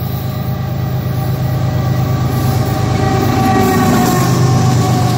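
Union Pacific diesel freight locomotives passing close by, engines running with a steady low rumble and a steady pitched whine above it, getting louder as the lead unit comes alongside.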